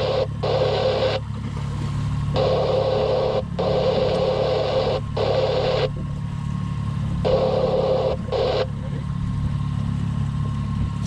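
Boat's outboard motor running steadily at low speed, under a rushing hiss that cuts in and out abruptly in stretches of about a second.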